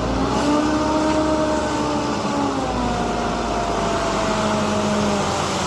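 A small motor running steadily under an even hiss of spraying water, its pitch sagging slowly about halfway through.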